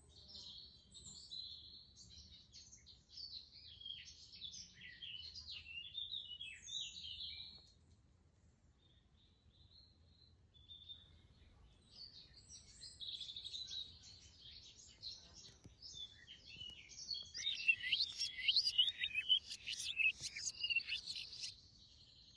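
Small songbirds singing: quick high chirps and trills in two bouts, with a pause of a few seconds in between; the second bout is louder and busier.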